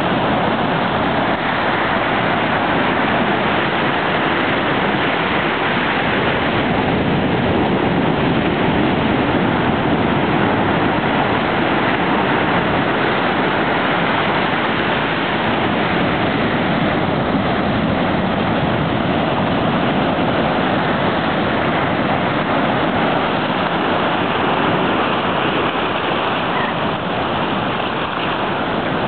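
Ocean surf washing over and between the rocks of a rocky shore: a steady rushing that hardly rises or falls.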